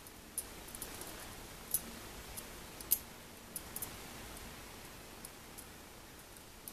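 Metal wire disentanglement puzzle handled by hand: light, irregular clicks and clinks as the wire loops and rod knock against each other, the loudest about three seconds in, over a faint steady hiss.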